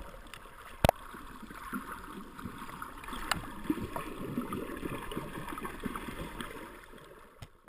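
Muffled underwater water noise recorded by a submerged camera: swishing and gurgling with scattered crackles and a sharp knock about a second in, fading out near the end.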